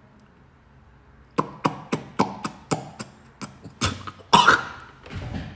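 A man coughing and sputtering in a quick run of short, sharp bursts starting about a second and a half in. The loudest, longest cough comes about four seconds in.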